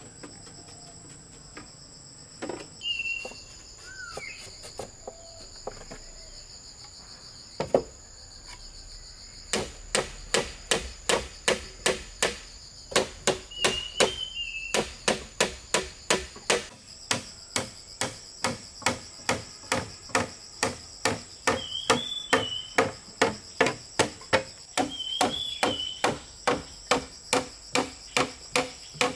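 Steady, regular strikes of a hand tool, about two a second, beginning about a third of the way in, over a constant high buzzing of insects. A few short bird chirps break in now and then.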